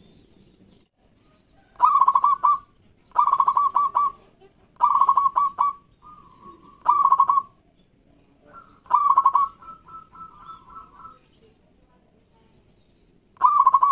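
Zebra dove (local Indonesian perkutut) singing: about six short bursts of rapid, stuttering coos, one just past the middle trailing on into a longer trill.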